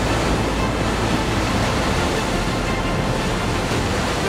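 Steady rush of a stormy sea and rain, with background music underneath.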